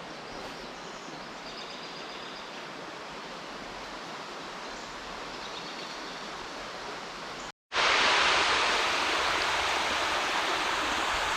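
Water rushing down a lake spillway, a steady rush; it cuts off briefly about seven and a half seconds in and comes back much louder.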